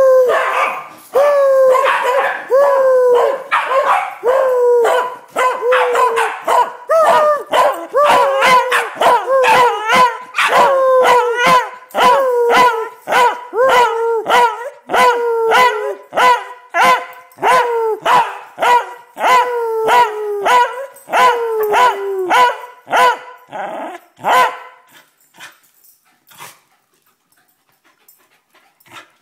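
Pembroke Welsh corgi barking: a long, loud run of short, high barks, each dropping in pitch, about two a second, stopping about 25 seconds in.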